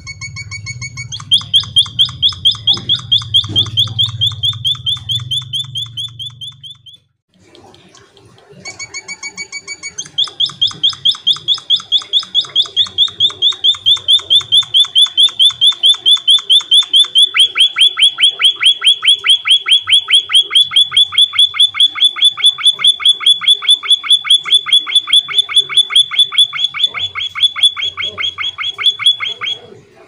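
White-headed munia (emprit kaji) singing in two long bouts of a fast, rapidly repeated trill. Each bout opens with a few short whistled notes. The second bout lasts about twenty seconds and turns fuller and harsher partway through.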